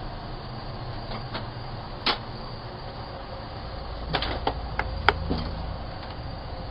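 Sharp clicks and knocks from a man handling a porch screen door and moving about, picked up by a doorbell camera's microphone over steady hiss. There is one click about two seconds in and a cluster of clicks between four and five seconds in.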